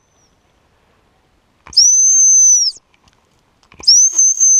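Gundog whistle blown in two long, steady, high-pitched blasts, the first about a second long and the second starting just under four seconds in. The blasts are handling signals to a retrieving dog.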